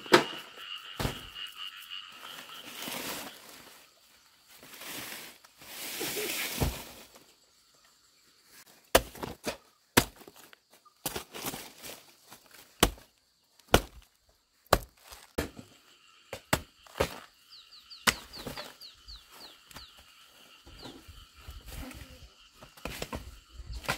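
Fallen banana trunks and dry banana leaves being chopped with a large knife and torn apart by hand. Rustling swells come first, then from about nine seconds in a run of sharp cracks and knocks, about a dozen, irregularly spaced. A steady high chirring runs in the background.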